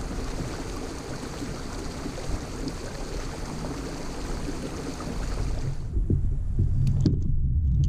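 Steady hiss of water rushing along the hull of a fishing kayak running fast under motor power. About six seconds in, the hiss cuts off and gives way to a low rumble of wind on the microphone, with a few light clicks.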